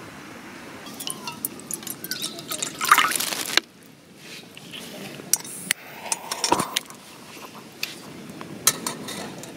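Water being poured into a Snow Peak Sierra cup, rising in pitch as the cup fills, cut off suddenly about three and a half seconds in. Light metallic clinks and taps follow as the cup and the solid-fuel burner are handled.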